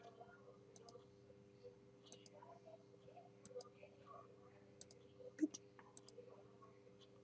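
Faint computer mouse clicks, scattered and sparse, one a little louder about five and a half seconds in, over a low steady hum.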